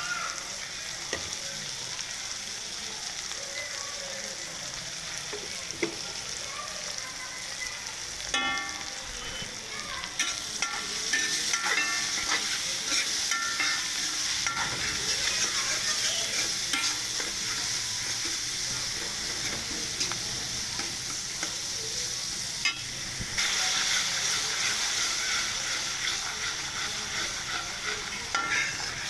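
Masala sizzling as it fries in oil in a kadhai, a steady high hiss. A spoon stirs and scrapes against the pan from about a quarter of the way in, and the sizzle swells louder soon after and again near the end.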